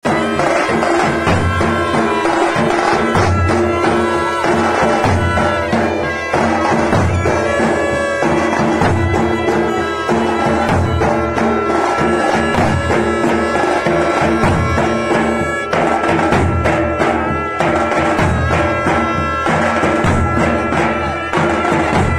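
Loud dhol drums beaten with sticks in a repeated folk rhythm, with a sanai (shehnai) playing a held, reedy melody over them.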